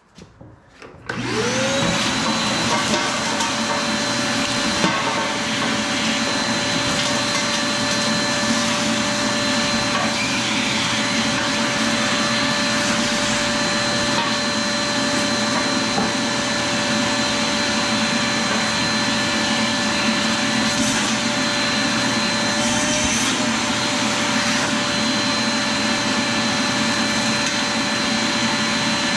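Vacmaster 5-gallon wet/dry shop vacuum switched on about a second in. Its motor spins up with a rising whine, then runs steadily.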